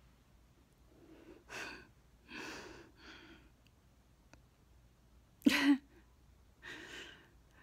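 A woman breathing out and sighing several times close to the microphone, with a short, sharp breathy laugh about five and a half seconds in.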